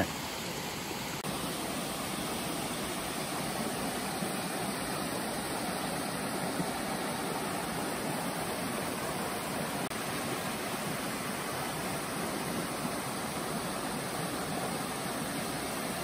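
Small woodland waterfall cascading over rocks into a pool, a steady rush of water.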